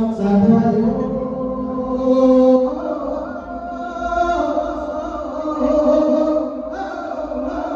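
A sung Thai Buddhist sermon (thet lae): one voice holds long, slowly shifting melodic notes in a chant-like line.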